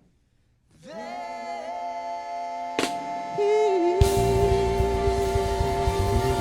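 Music: a held, choir-like chord swells in about a second in, with a sharp click near three seconds. A full band with drums comes in about four seconds in.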